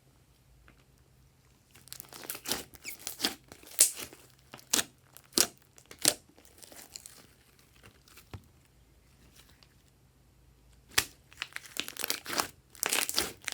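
Glossy slime being worked by hand, giving off sticky crackling and popping clicks in bursts. There is a quiet gap in the middle, then the crackling picks up again near the end.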